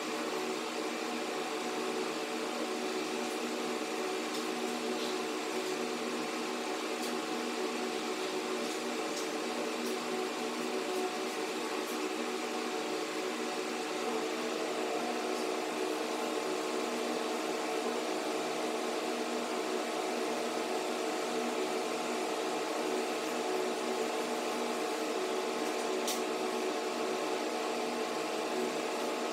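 A steady mechanical hum made of several held tones, with one more tone joining about halfway through.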